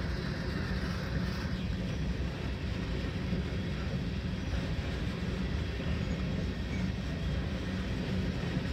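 Freight train of coal hopper cars rolling past at steady speed, a continuous low rumble of steel wheels on rail with no distinct clicks or changes.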